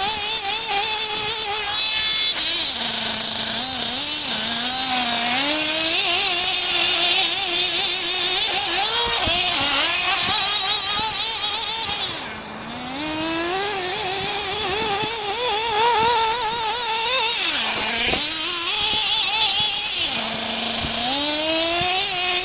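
Two-stroke nitro glow engine of a radio-controlled car, running untuned and revving up and down constantly with a wavering pitch. It falls back to a low idle several times, most clearly about halfway through, where it also briefly goes quieter.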